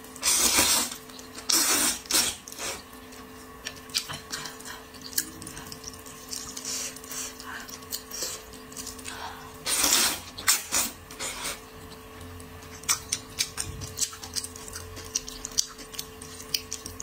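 A person slurping wide wheat noodles in three loud bursts, near the start, about two seconds in and about ten seconds in, with wet chewing clicks between. A faint steady hum runs underneath.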